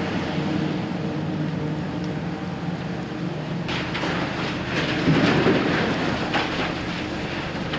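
Hitachi EX8000 mining excavator at work: a steady heavy diesel drone, joined from about four seconds in by metal clanking and rattling that is loudest a little past five seconds.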